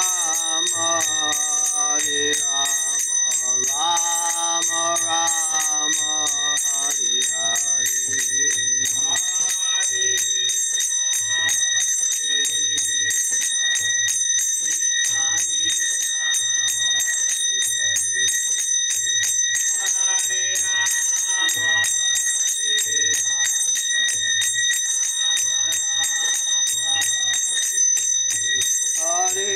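A man singing a devotional chant in phrases, with small hand cymbals (kartals) struck in a steady beat a little faster than once a second, their ringing carrying on underneath.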